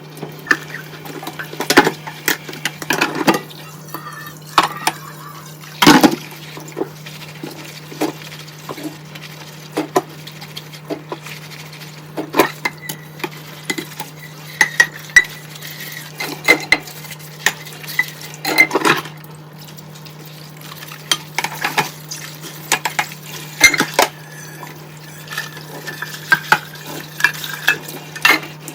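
Dishes and cutlery clinking and knocking against each other in a kitchen sink as they are washed by hand. The clinks come irregularly, with a louder knock about six seconds in and another near nineteen seconds.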